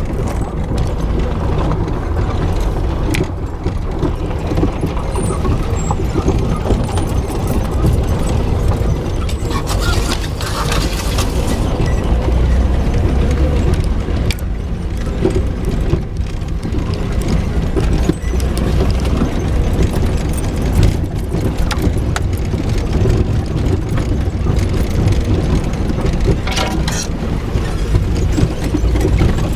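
Jeep crawling over a rocky dirt trail: a steady low engine and drivetrain rumble with scattered knocks and rattles from the rough ground, heard from inside the cab.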